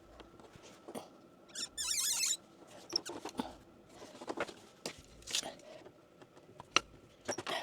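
Hands working PEX pipe and plastic fittings into place: scattered clicks, taps and scrapes, with a brief rapid ratcheting rasp about two seconds in.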